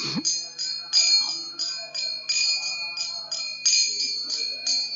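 Small brass hand cymbals (kartals) struck in a steady devotional rhythm, about three ringing strikes a second, over a faint low sustained tone.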